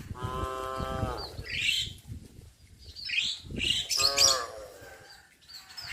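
Cows mooing: two calls, one about a second long near the start and a shorter one about four seconds in, each dropping in pitch at its end. Short high bird chirps come between them.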